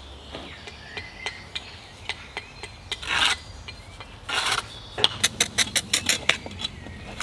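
Steel trowel scraping and chipping old mortar off bricks: two scrapes about three and four and a half seconds in, then a quick run of sharp taps, roughly five a second.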